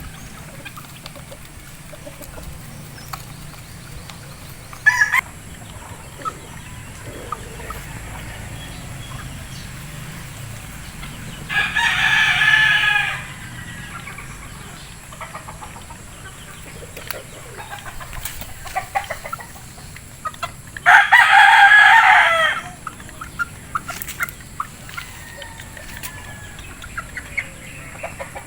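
Rooster crowing twice, each crow about a second and a half long and some ten seconds apart, with a short call about five seconds in and faint scattered chicken sounds between.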